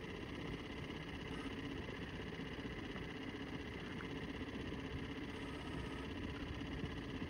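Small outboard motor running steadily with wind and water noise from aboard a small sailboat.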